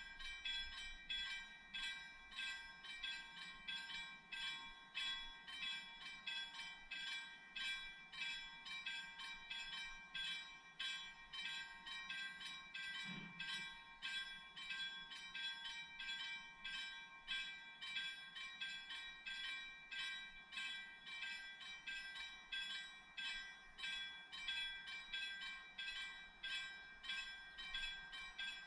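Railway level-crossing warning bell ringing in a steady, rapid series of even strikes. This is the crossing's alarm sounding while the barriers are down for an approaching train.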